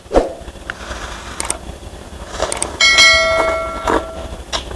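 A notification-bell chime sound effect from a subscribe-button overlay rings about three seconds in and fades within a second, just after a couple of short clicks. Around it are soft noodle-slurping and chewing sounds.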